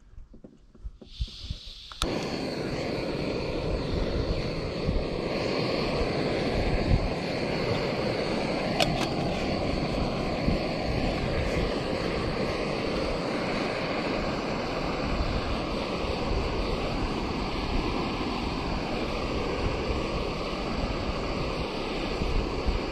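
Small backpacking canister stove lit: gas hisses from the opened valve, a sharp click about two seconds in, and the burner then runs with a loud, steady rushing flame noise.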